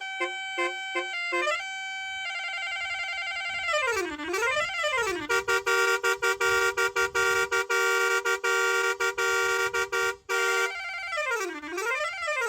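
Electronic musical truck horn running through its tones: a quick run of short notes, a held wavering note, a falling-and-rising siren sweep about four seconds in, then a long steady two-tone blast chopped into rapid pulses, and another siren sweep near the end.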